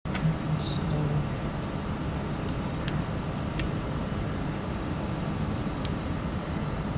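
Steady background noise with a few faint clicks from the plastic case of a fingertip pulse oximeter being handled and fitted together.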